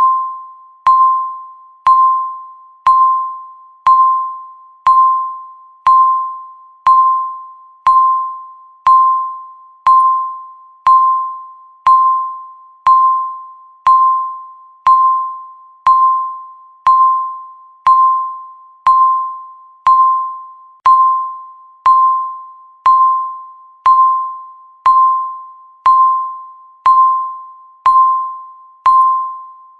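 Countdown timer beeping once a second: a short electronic tone of a single pitch, each beep starting sharply and fading quickly.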